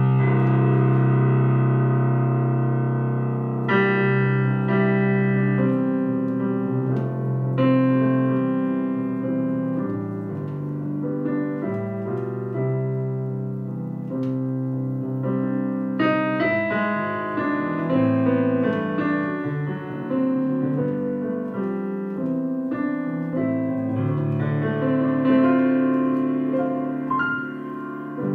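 Casio PX-S1000 digital piano being played: sustained chords with a melody over them. It opens on a long held chord, and new chords follow every few seconds.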